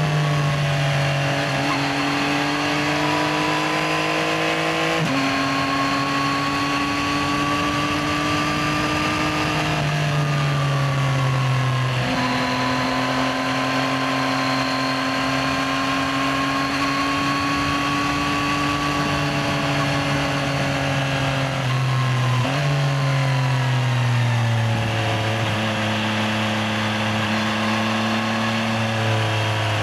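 Yamaha XSR900's 890 cc inline-three engine pulling steadily on a ride, its note rising slowly in each gear. The pitch drops sharply several times, at gear changes and when the throttle is rolled off.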